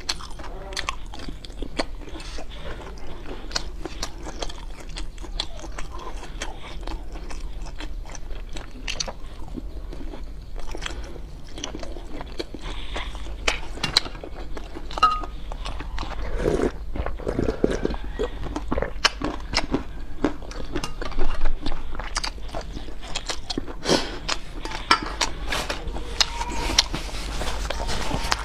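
Close-up eating sounds: biting and chewing food, with many short sharp mouth clicks and crunches.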